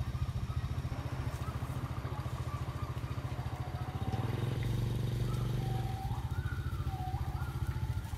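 A small engine running at idle with a fast, even throb, rising slightly in pitch for a couple of seconds around the middle.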